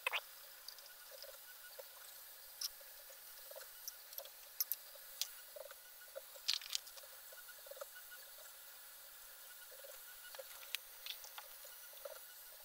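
Faint, scattered light clicks and taps of small parts and a hex driver as the auxiliary blower fan assembly is fitted and screwed onto the 3D printer's print head.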